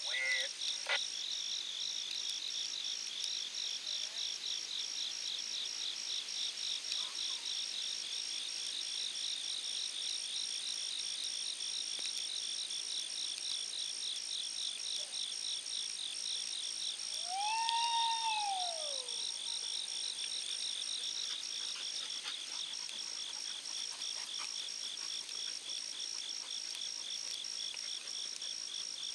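A steady chorus of insects, crickets or katydids, chirping in a rapid pulsing rhythm with a thin steady high tone above it. About two-thirds of the way through, one long howl rises and falls over a second or two, a hound baying during the drive.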